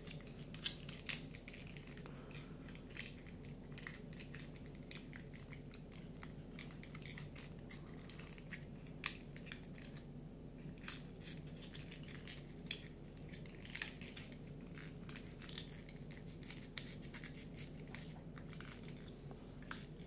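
Irregular small clicks and scratches of stiff printed card being handled, folded and its tabs pushed into slots on a cardboard 3D puzzle, over a faint steady low hum.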